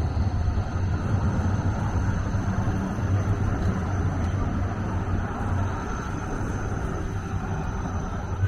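Electric low-floor trams running past on street track, a steady low rumble of wheels on rail and traction drive with a thin high whine over it. Near the end a faint wheel squeal comes in as a tram rounds a curve.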